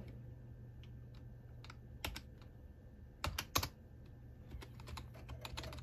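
Computer keyboard being typed on: a few scattered key presses, a louder group of three about three seconds in, then a run of lighter, quicker keystrokes near the end.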